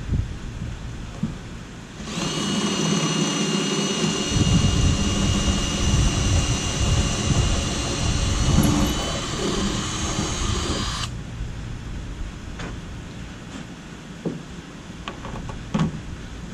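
Cordless drill starting about two seconds in and running steadily with a whine for about nine seconds, drilling through the canoe's gunwale to mount the yoke, then stopping suddenly. A few light clicks and knocks follow.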